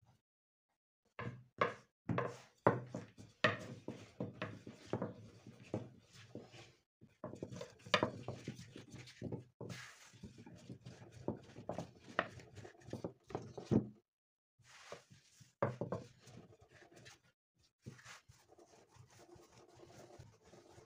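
Wooden rolling pin rolling out a ball of soft dough on a floured silicone mat over a wooden table: irregular knocks and thuds as the pin is set down and rolled back and forth, with a few short pauses.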